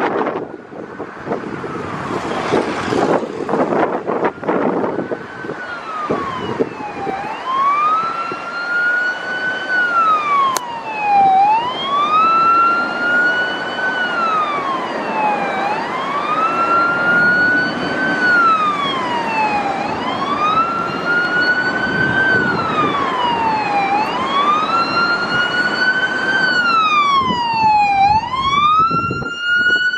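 A vehicle siren wailing, its pitch rising and falling slowly about every four seconds, starting about five seconds in. Before it, a rush of wind-like noise.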